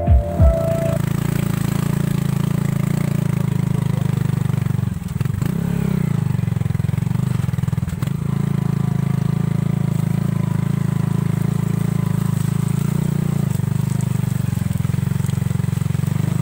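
Small motorcycle engine running steadily under way, with a brief drop and rise in its note about five seconds in.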